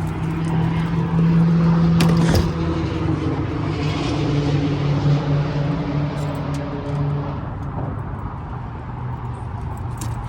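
Boat motor running steadily with an even hum, easing off about seven and a half seconds in; a sharp click about two seconds in.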